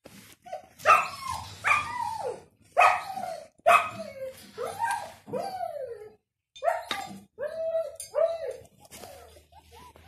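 Five-week-old puppies yapping: a run of short, high yips and whiny barks, each falling in pitch, in quick bunches with a brief pause a little past halfway.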